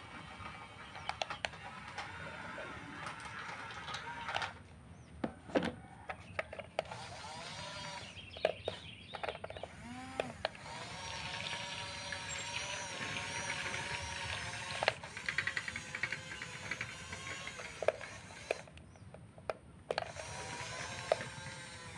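Small electric motors and gearboxes of radio-controlled construction models whining as they run, their pitch wavering and shifting, with scattered clicks and knocks.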